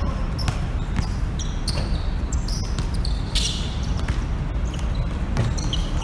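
A basketball bouncing on an outdoor hard court amid players' footsteps, with scattered sharp knocks and short high squeaks over a steady low background rumble.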